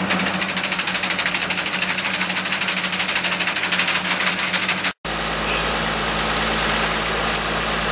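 Over-the-row olive harvester at work: its shaker rods beat through the olive canopy in a fast, even rhythm over the steady run of its engine. About five seconds in the sound cuts out briefly, and the harvester's engine then runs steadily with no beating.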